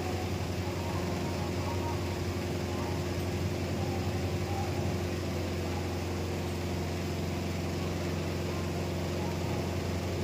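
Steady low mechanical hum, like a motor running continuously, with a few faint higher tones held above it.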